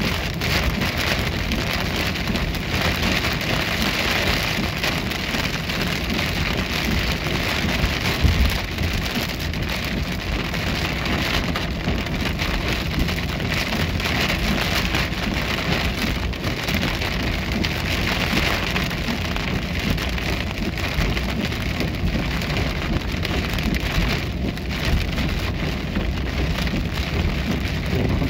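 Heavy rain pelting the windshield and roof of a moving car, heard from inside the cabin, over a steady low rumble of the car on the wet road.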